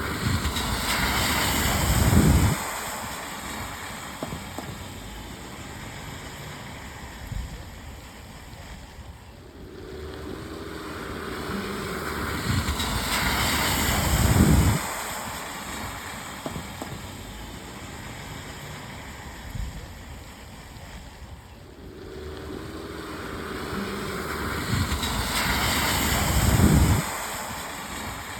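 Cars passing one at a time on a rain-soaked road, tyres hissing through puddles over the steady hiss of rain. Each pass swells slowly and ends in a short low rush, about once every twelve seconds, three times in all.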